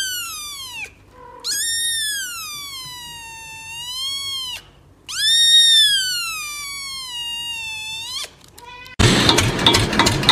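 Gray-and-white kitten meowing: the tail of one meow, then two long, drawn-out high meows, each rising and then sliding down in pitch. About nine seconds in, a loud, harsh, rhythmic noise takes over.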